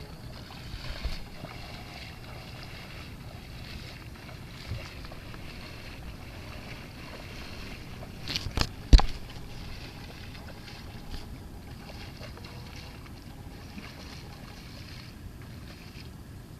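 A single sharp, loud bang about halfway through, just after a few smaller knocks, over a steady low rumble.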